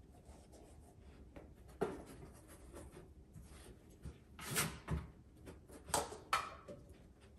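Staffy puppy nosing at cups and a cardboard box while searching by scent: a few short scuffs and rubs, the loudest about two seconds in, around four and a half seconds, and about six seconds in.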